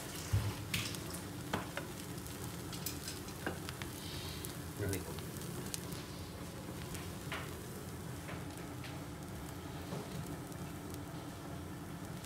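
Bread slices sizzling in a little refined oil in a frying pan as they toast brown, with a few light knocks against the pan.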